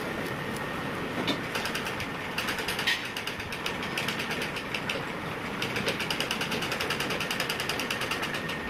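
Black treadle sewing machine stitching cloth in short runs: its needle mechanism clatters at about ten clicks a second, with two longer runs in the second half over a steady background hiss.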